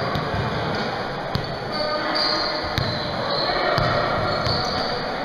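Basketball game in a gym: sneakers squeaking on the court, a couple of sharp knocks of the ball, and indistinct voices of players and spectators echoing in the hall.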